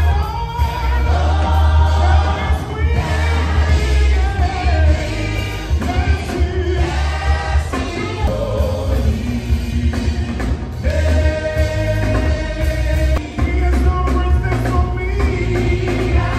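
Live gospel worship music: a male lead singer with a backing choir, amplified through a PA over a strong bass line.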